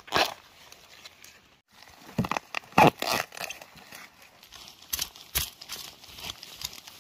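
A machete chopping and scraping into soil and dry leaf litter while a bamboo shoot is dug out. The strikes come irregularly, in clusters, with rustling of dry leaves between them.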